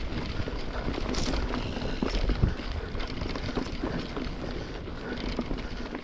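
Mountain bike rolling over rough trail: tyres on dirt, rocks and roots, with a continuous rattle and knocking from the bike over a low rumble. One harder knock comes a little before halfway through.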